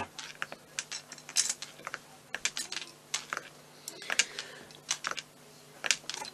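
Irregular light clicks and taps as a small rolling pin is rolled back and forth over sugar paste on a paste board.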